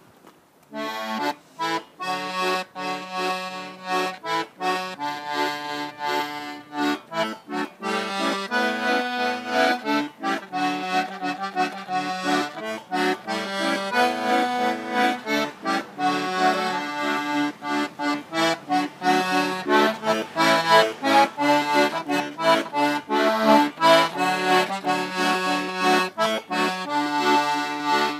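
An Albrecht squeezebox playing a tune, quick-changing notes over held chords, starting about half a second in after a brief pause.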